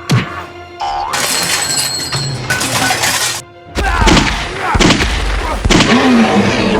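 Background music mixed with loud crashing and breaking sound effects. They stop briefly about three and a half seconds in, then resume with a heavy low rumble.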